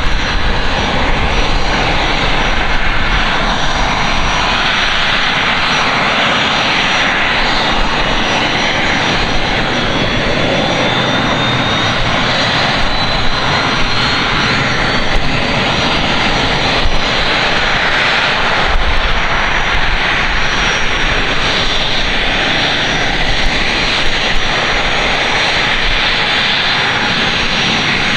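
Turbofan engines of a three-engined business jet idling while it stands on the taxiway: a steady rush with a thin high turbine whine over it.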